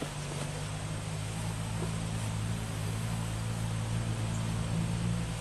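A steady low engine drone, growing slowly louder.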